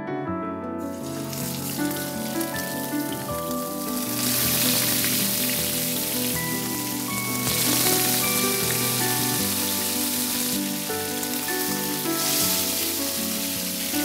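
Steaks sizzling in hot oil in a nonstick frying pan on high heat. The sizzle starts about a second in and grows louder around four seconds in, over soft background music.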